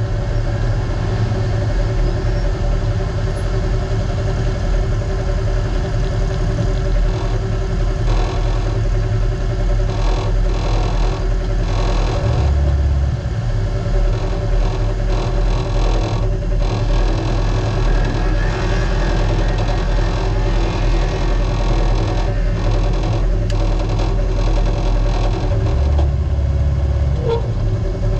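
Naturally aspirated Polaris RZR UTV engine running loud and fairly steady under race load, heard from onboard, with occasional knocks and rattles from the chassis.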